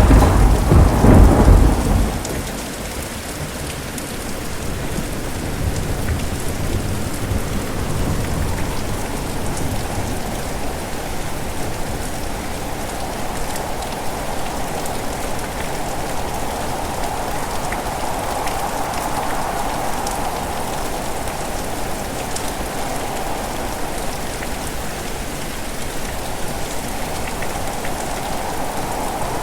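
Steady rain falling, with the low rumble of a thunderclap dying away over the first two seconds.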